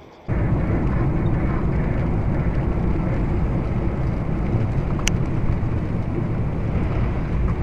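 Steady road and engine rumble inside a moving vehicle, picked up by its dashcam, starting suddenly a moment in. A single short sharp click sounds about five seconds in.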